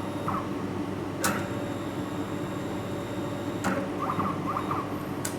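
Motorised worktable axes of a laser welding machine moving under joystick control. A sharp click about a second in starts a steady high whine that runs for about two and a half seconds and ends with another click. A few short chirps and a further click follow near the end, over the steady hum of the running machine.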